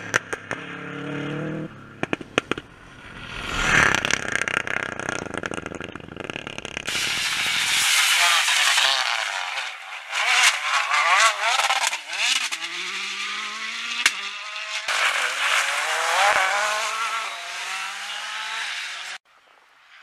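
Rally car engines revving hard through gear changes on a loose, muddy gravel stage, in several short passes edited back to back. In the loudest stretch, from about seven seconds in, the engine note climbs and drops with each shift over a hiss of tyres on gravel. The sound cuts off abruptly near the end.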